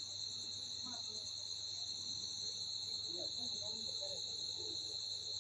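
Night insects, crickets, trilling steadily and continuously at a high pitch, with a fainter rhythmic chirp repeating above it.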